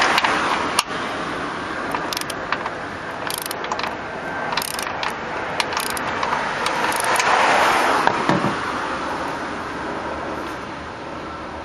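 Torque wrench ratcheting in short, irregular strokes, scattered clicks, as a hood-strut mounting bolt is run down toward snug.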